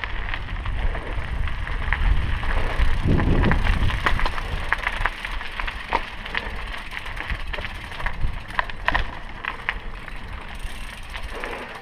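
Scattered sharp clicks and knocks over a steady low rumble, with a louder low swell about three seconds in.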